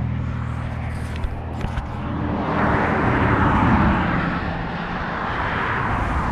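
Road traffic passing close by. One vehicle's engine hum fades away, then another vehicle swells past and recedes about three to four seconds in. A few light clicks come between one and two seconds in.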